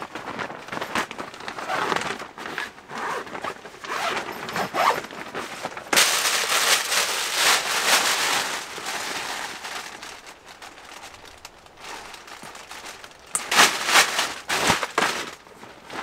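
Tent fabric rustling and crinkling, with scattered clicks and knocks, as a tent is pitched. There is a longer stretch of loud rustling about six seconds in and another cluster near the end.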